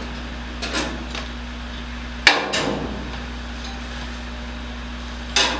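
Three sharp knocks with a short ring after each, the loudest about two seconds in, over a steady low shop hum, like tools striking during sheet-metal fender work.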